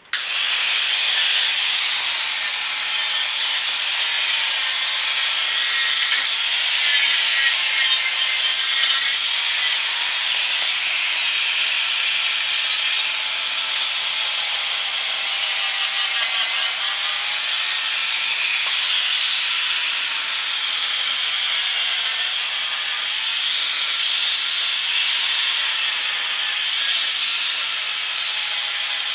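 Angle grinder with a flap disc running continuously, grinding the sharp cut edges of an old VW transmission bell housing smooth. The motor's whine wavers, dipping in pitch and recovering as the disc is pressed onto the metal.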